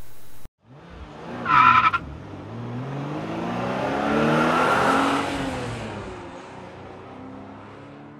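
A steady hum cuts off half a second in, followed by a car engine revving with a short tyre squeal about one and a half seconds in. The engine note rises and falls, swells to a peak about five seconds in, then fades away.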